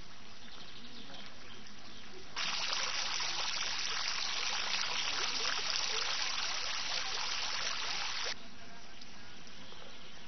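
Small fountain jet splashing back into a round pond basin: a steady spray of falling water that starts abruptly about two seconds in and cuts off sharply about six seconds later.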